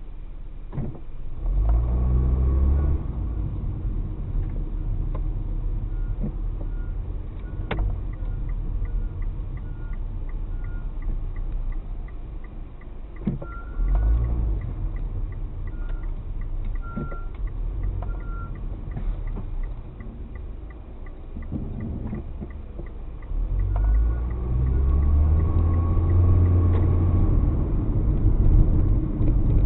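Car running, heard from inside the cabin: steady engine and road rumble, the engine rising as the car pulls away about two seconds in and again near the end, with a quieter stretch between. A fast, regular light ticking runs through the middle.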